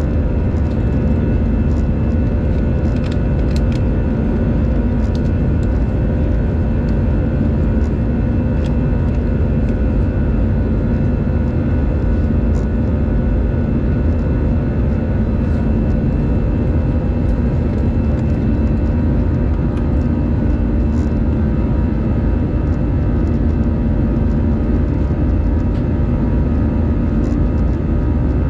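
Airbus A319 cabin noise in flight, heard inside the cabin by the wing: a steady rumble of jet engines and rushing air, with a constant hum in several tones over it.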